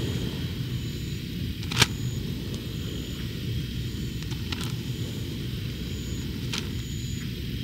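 Pieces of frozen beef tripe being set by hand on a hot lightweight griddle over a portable gas stove. There is a sharp tap about two seconds in and a couple of fainter taps later, over a steady low rumble.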